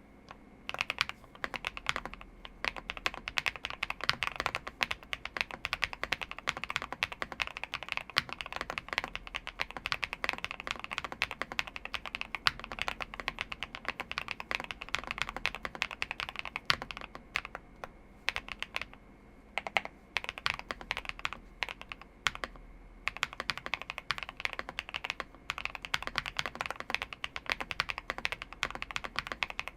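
Fast, continuous typing on a Zuoya GMK87 mechanical keyboard with lubed G-Squared White Warrior switches, dye-sub keycaps, a PP plate and full foam, the keystrokes clicking in quick runs with a few brief pauses.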